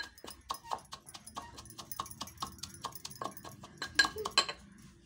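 Steel pestle pounding grain in a steel mortar: quick ringing metal knocks, about four a second, loudest just before they stop about four and a half seconds in.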